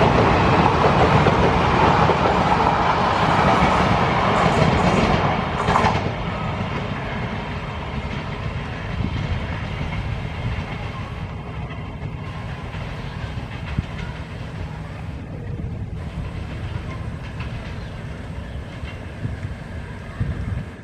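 Passenger train rolling over a steel rail bridge, its wheels clattering on the rails. The sound is loudest at first, eases about six seconds in, and continues as a lower rumble.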